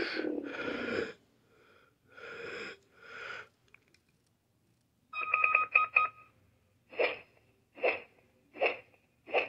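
Power Rangers Cosmic Fury morpher toy playing its electronic sound effects from its small speaker as its buttons are pressed. A falling tone cuts off about a second in, followed by two short noisy blips, a quick run of beeps, and then short bursts repeating a little under once a second.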